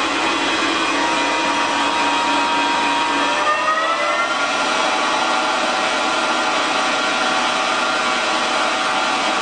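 Dainichi DL65 CNC lathe's spindle spinning the chuck, a steady whine made of several tones. About three and a half seconds in, the pitch rises as the spindle speeds up, then holds steady at the higher speed.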